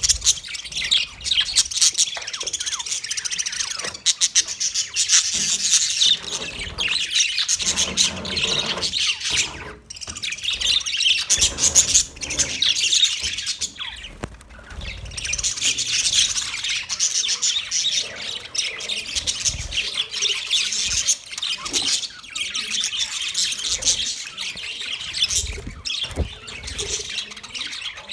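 A large colony of budgerigars chirping and chattering together, many birds at once in a dense, unbroken chorus, with occasional squawks.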